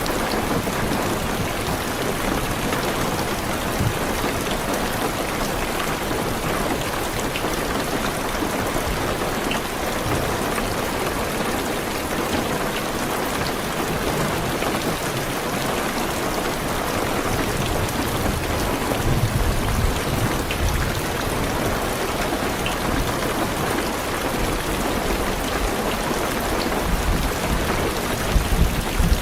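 Heavy rain pattering steadily on a car, heard from inside the cabin. Low rumbles of thunder come about two-thirds of the way through and again near the end.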